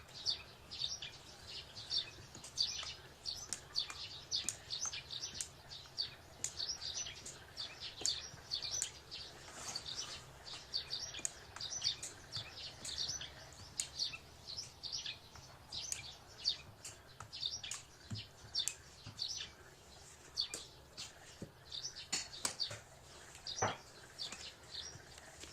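Small birds chirping rapidly and continuously, many short high chirps in quick succession.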